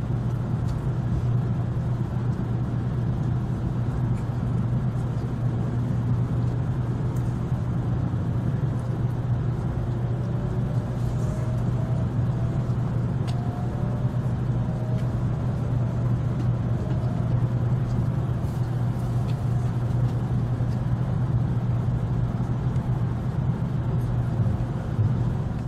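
Cabin noise of a Tokaido Shinkansen train pulling out of the station and gathering speed: a steady low rumble, with a faint rising whine from about ten seconds in.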